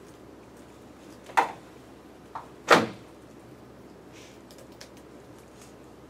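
Two sharp knocks about a second and a half apart, the second the louder with a smaller tap just before it, then a few faint ticks over a low steady background.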